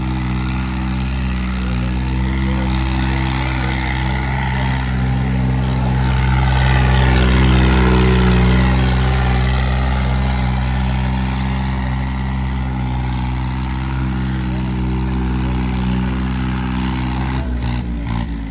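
New Holland tractor's diesel engine running hard at steady high revs while the tractor spins on its rear wheels with the front end raised. It grows louder midway, then drops away about a second before the end.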